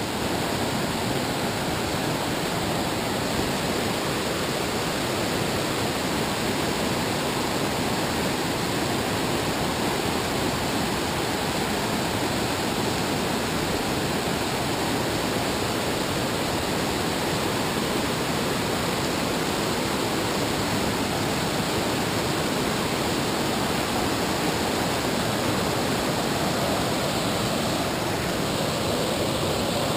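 River water rushing over a rocky rapid close by: a steady, unbroken whitewater rush with no change in level.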